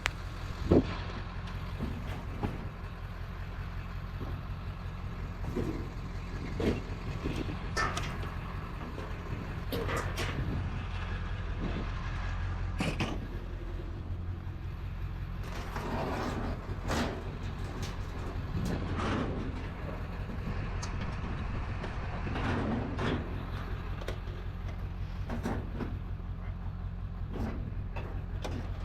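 A vehicle engine running steadily with a low hum, with scattered knocks and rattles over it.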